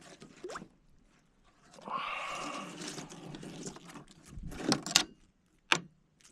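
Handling noises from threading a caught fish onto a stringer in a kayak: a stretch of rustling and scraping, then a few sharp clicks and knocks.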